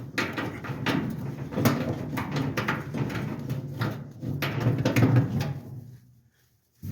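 A rag rubbing over a dryer's drum support wheel as it is cleaned of lint and lubricant: a quick, uneven run of scrubbing strokes and small clicks of the part being handled, stopping briefly near the end.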